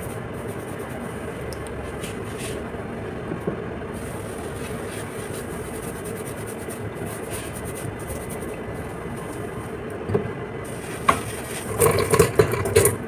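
Hands massaging and scrubbing wet hair coated with a coffee-ground scrub into the scalp, over a steady background hiss. There is a cluster of louder, sharp rubbing sounds near the end.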